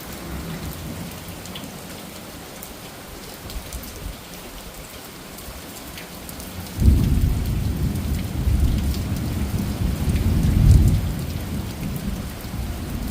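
Rain falling steadily in a thunderstorm, with scattered drop ticks. About seven seconds in, a loud low rumble of thunder breaks in suddenly and rolls on for several seconds, swelling once more before it fades.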